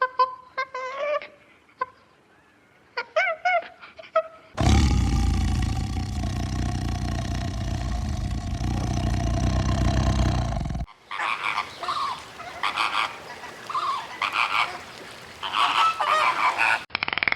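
Short, repeated honking calls of domestic fowl. From about four and a half seconds in, a loud, even rushing noise with a steady hum covers them for some six seconds and then cuts off suddenly. Scattered calls follow over a noisier background.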